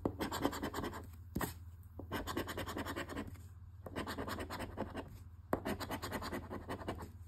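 Scratch-off lottery ticket being scratched by hand, the coating rubbed off in rapid back-and-forth strokes that come in several bursts with short pauses.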